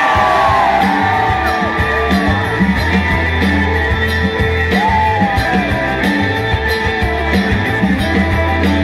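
Live rock band playing: electric and acoustic guitars over drums and steady low bass notes, with a melody line sliding up and down above them near the start and again about five seconds in.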